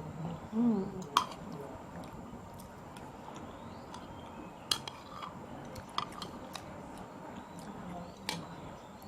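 Eating sounds: a metal spoon clinking against a bowl four times, with soft chewing between. A brief wavering voiced sound comes just after the start.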